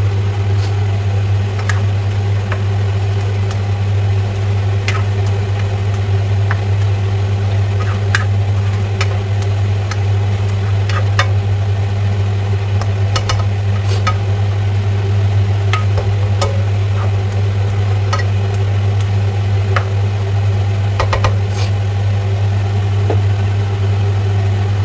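A spatula stirring and scraping frog pieces and zucchini in a frying pan, with scattered light clicks against the pan, over a loud steady low mechanical hum.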